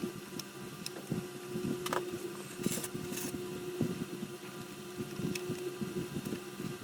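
A steady mechanical hum from a small motor or fan, with scattered small clicks and taps and a couple of short hisses about three seconds in.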